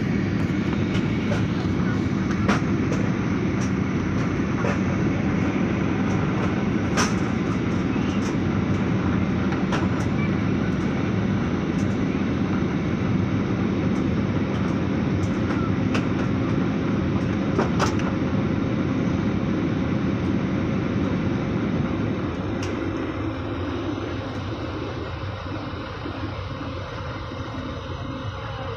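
Airliner cabin noise: the steady low rumble of the jet engines and airflow, with occasional light clicks and rattles, easing off somewhat near the end.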